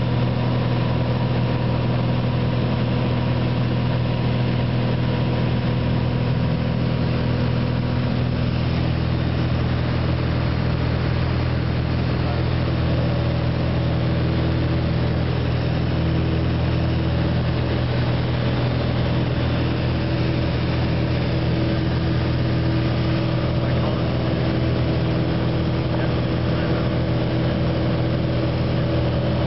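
Light propeller aircraft's engine and propeller running steadily in flight, heard inside the cockpit. About halfway through, some of its tones step slightly higher.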